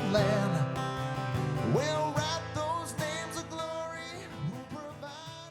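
Background song with a singing voice and guitar, fading out steadily.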